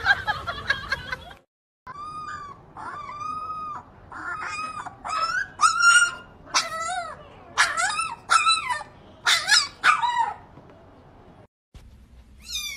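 Young puppies whimpering and yipping: a run of more than a dozen high, arching cries, building up to the loudest about halfway through. Near the end a kitten gives a couple of high, falling meows.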